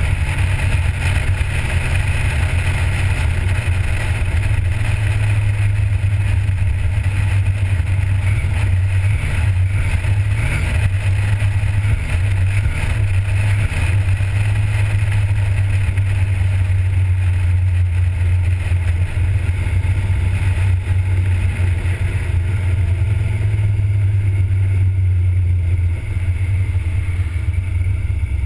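1977 Chevrolet Corvette's V8 engine running while cruising, a low steady drone with a hiss of noise over it.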